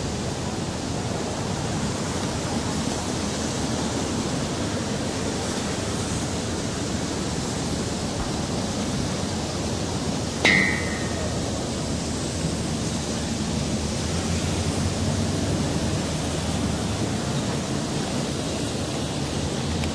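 Steady outdoor background hiss, with one sharp metallic clink that rings briefly about halfway through.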